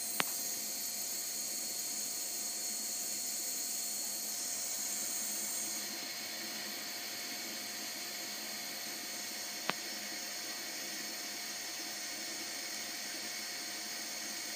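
Steady hiss with a faint constant whine from the running wire-laying 3D-printing machine. Two sharp clicks, one just after the start and one about ten seconds in.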